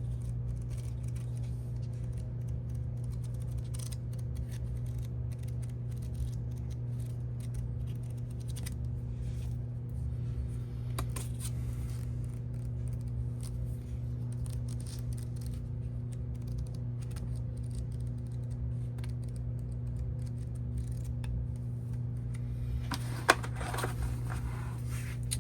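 Faint crinkling, scraping and clicking as a K-pop album box and its wrapping are handled and opened, over a steady low hum, with one sharp click near the end.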